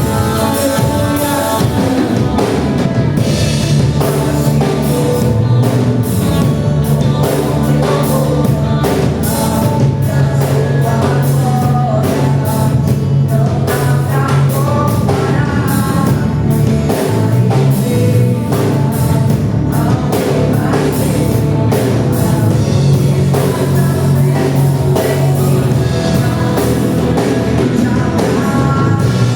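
Worship band playing a rock-style song, with singing over drum kit and guitar.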